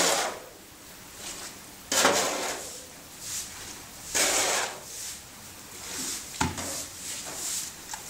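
Swishing, splashing strokes of floodwater being pushed across a flooded floor, one roughly every two seconds, with a single knock about six seconds in.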